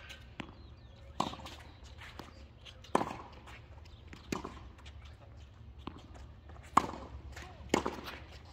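Tennis rally on a hard court: sharp pops of a tennis ball struck by rackets and bouncing off the court, irregularly every second or two, with the loudest hits a little after one second, at about three seconds and twice near the end.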